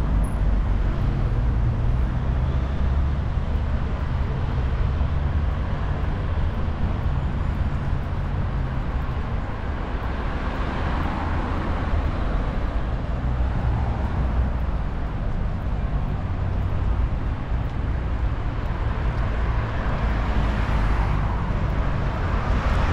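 City street traffic: a steady rumble of cars and other motor vehicles, swelling as vehicles pass about halfway through and again near the end.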